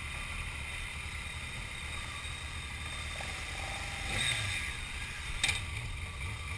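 Motorcycle engines idling at a standstill, a steady low rumble. A brief rustle rises about four seconds in, and a single sharp click comes about five and a half seconds in.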